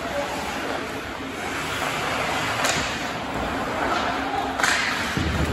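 Ice hockey scrimmage in a rink: a steady hiss of skate blades on the ice, two sharp clacks of stick and puck, about halfway through and near the end, and players calling out.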